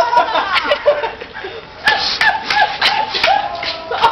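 Teenage boys' excited voices, shouting and laughing in short pulses, with a few sharp clicks.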